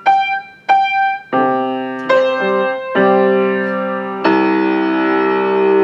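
Piano played by beginners, one on each hand: two short single notes, then three chords, and a final chord about four seconds in that is held and rings on, sounding nice and big.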